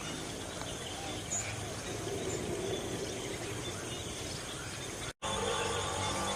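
Steady outdoor background noise with no distinct event, broken by a brief dropout about five seconds in.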